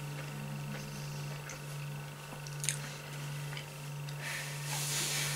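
A steady low electrical hum, with a few faint short clicks and a brief rustle near the end.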